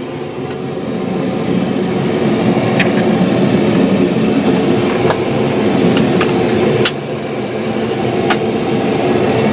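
Komatsu PC88 excavator's diesel engine running at idle, heard from inside the closed cab together with the air conditioning fan; the hum grows louder over the first two seconds. A few sharp clicks sound over it.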